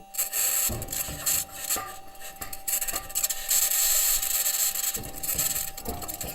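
Mars Perseverance rover recording: metal wheels grinding and scraping over rock, with irregular clanks and a steady thin tone running underneath.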